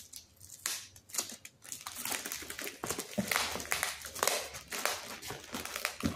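Clear plastic film crinkling and rustling in irregular strokes as hands pull it across a cardboard box and press it down over a foam strip.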